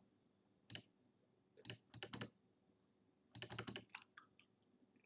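Computer keys tapped in soft, quick bursts: a single click under a second in, a short run of clicks around two seconds, a longer rapid run a little past three seconds, then a few fainter taps.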